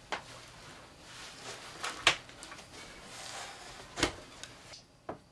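People moving about and settling at a table in a small room: rustling of clothes and handling, with four sharp knocks, the loudest about two seconds in.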